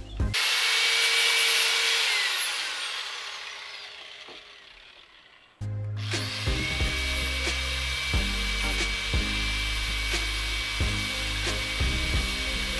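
Angle grinder running at full speed, then winding down with a falling whine after it is switched off. After a cut it runs steadily again, grinding brass square stock held in a bench vise, with background music underneath.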